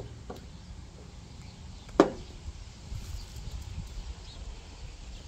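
A single sharp click about two seconds in, over a faint low rumble.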